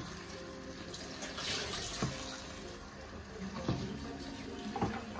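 A spatula stirring chicken pieces in thick masala in a nonstick pot, over a steady hiss, with a few knocks of the spatula against the pot about two seconds in and near the end.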